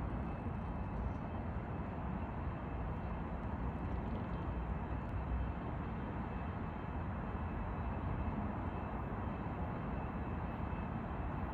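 Steady low rumble of distant city traffic, with a faint steady high tone above it.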